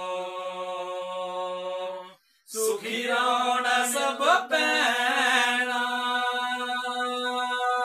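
Man singing a Dogra folk song in long held notes, pausing for breath about two seconds in, with a sliding note a little before the middle.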